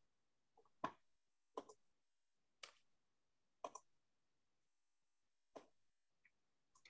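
Near silence with five or six faint, sharp clicks about a second apart: computer mouse clicks as a screen share is set up.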